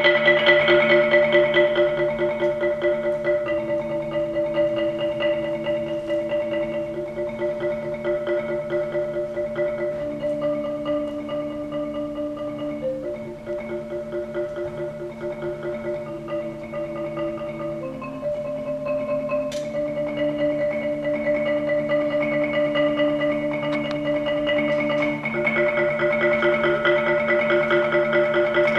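Solo marimba played with mallets: a slow chordal passage of rolled notes, each chord held for a few seconds before moving to the next. It grows softer in the middle and swells again near the end.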